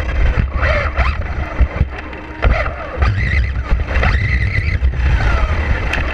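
Vaterra Glamis Uno RC buggy's brushless electric motor whining, rising and falling in pitch as the throttle is punched in bursts, with a longer high whine about four seconds in that slides down just after five seconds. Heavy wind rumble and knocks from the rough ride on the car-mounted camera sit underneath.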